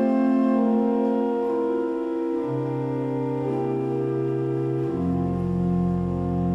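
Church organ playing sustained chords. The chord changes about halfway through, and deeper bass notes come in near the end.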